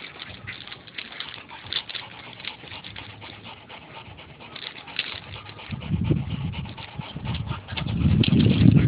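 Adult yellow Labrador panting while its puppies scuffle against it, with small scratchy crackles throughout. A low rumble comes in about six seconds in and grows loud near the end.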